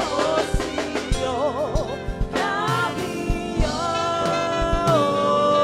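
Live gospel choir singing with a band: voices holding long notes, some with vibrato, over keyboard and a steady drum beat.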